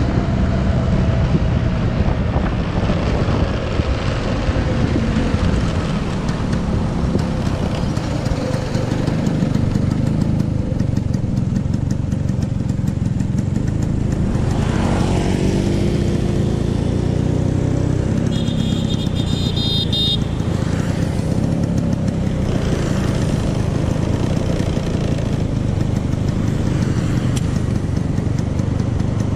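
Old Vespa scooter's single-cylinder two-stroke engine running under way, the rider's-eye recording picking up its steady drone with road noise. The engine note shifts in pitch about halfway through, and a brief high-pitched tone sounds a few seconds later.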